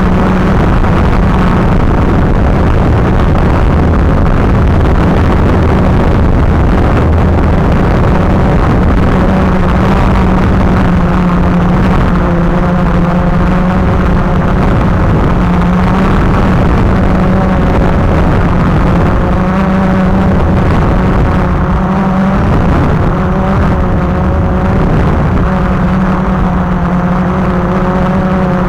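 Quadcopter drone's electric motors and propellers running in flight: a loud steady buzz with several whining tones that waver up and down as the throttle changes.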